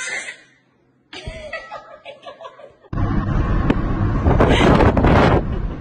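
A small child's voice with laughter, then a sudden switch to a loud rushing noise inside a car, with a louder burst of noise about a second and a half later.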